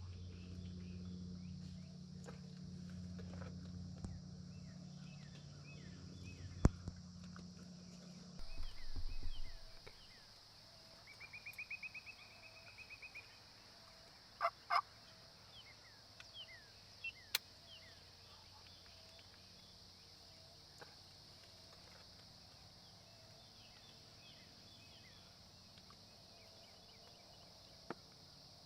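A faint Osceola wild turkey gobble about eleven seconds in: a quick rattling call lasting about two seconds, amid small bird chirps. A low steady hum runs for the first third, and a few sharp clicks follow the gobble.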